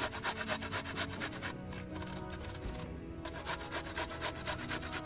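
Garlic clove rasped against a stainless-steel box grater in quick even strokes, about four or five a second, with two short pauses.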